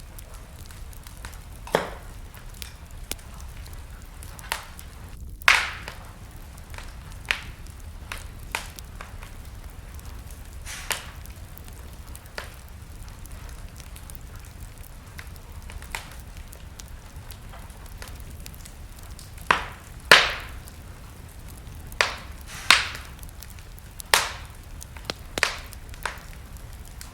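Wood fire crackling in a fireplace: sharp, irregular pops and snaps over a steady low hiss. A cluster of louder pops comes in the last third.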